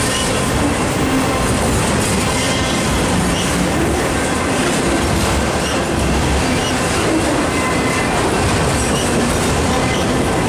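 Long freight train of autorack cars rolling past close by: a steady, loud rumble of wheels on rail with clickety-clack over the rail joints and a faint wheel squeal.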